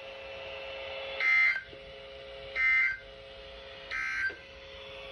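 Emergency Alert System end-of-message data tones: three short bursts of warbling digital noise, about a second and a half apart, marking the close of the alert. A faint steady hum sounds in the gaps between the bursts.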